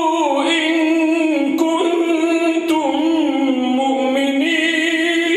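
A man reciting the Quran in melodic tajweed chant, drawing out long notes that waver and slide in pitch.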